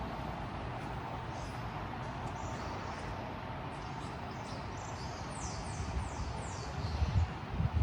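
Small birds chirping over a steady city street hum, with a quick run of about four falling chirps about five seconds in. A few low thumps come near the end.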